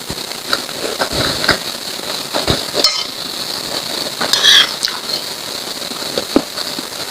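Close-miked wet chewing and mouth sounds of someone eating lontong sayur, with many small clicks and smacks and a brief squeak about four and a half seconds in.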